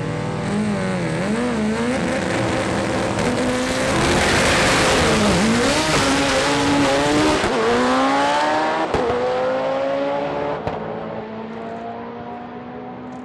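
Stick-shift drag racing car at full throttle, launching and running down the strip. The engine pitch climbs through each gear and drops back at the shifts, then fades as the car pulls away. Two sharp cracks come near the end of the run.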